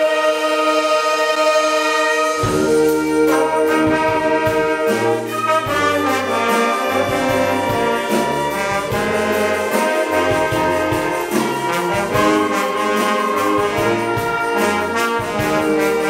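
Wind band with brass and saxophones playing: a held chord, then the bass notes come in about two and a half seconds in and the band moves into a tune.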